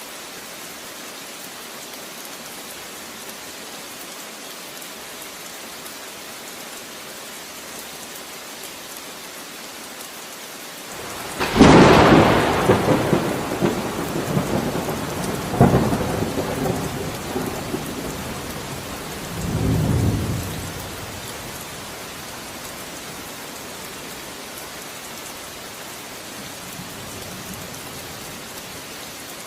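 Steady rain falling, broken by a thunderclap about eleven seconds in that rumbles on for several seconds, a second sharp crack about four seconds later, and a last low rumble near twenty seconds before only the rain is left.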